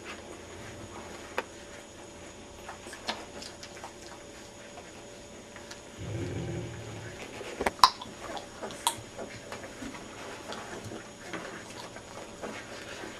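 Twelve-day-old Great Dane puppies nursing, with faint scattered suckling clicks and small squeaks. About six seconds in there is a brief low rumble, and a sharp click a couple of seconds later is the loudest sound.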